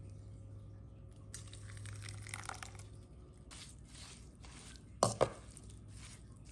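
Sliced cucumber and perilla leaves being mixed in a wet sesame-seed seasoning: soft squishing and rustling in short repeated strokes, with two sharp clicks about five seconds in.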